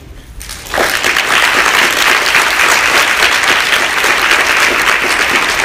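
Audience applauding, starting about a second in after a brief hush and then holding steady: many hands clapping at once.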